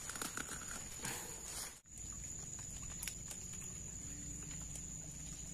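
Footsteps and brushing through wet undergrowth for the first couple of seconds, then an abrupt cut to a steady outdoor background. A constant high-pitched whine runs throughout.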